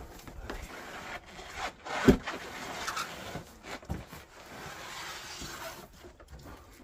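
Rubbing and scraping of packaging being worked off a large battery unit, with a single heavy thump about two seconds in.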